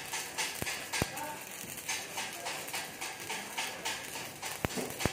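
Shielded metal arc (stick) welding arc crackling and sizzling, surging in a regular rhythm of about three pulses a second, with a few sharp clicks.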